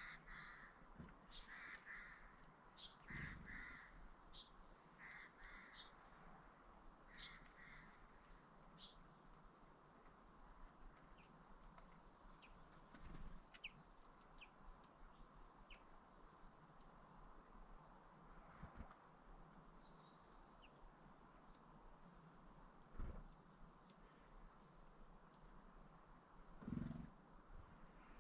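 Wild birds calling outdoors, quietly: short repeated calls in pairs during the first several seconds and high chirps recurring throughout. Two brief low thumps late on are the loudest sounds.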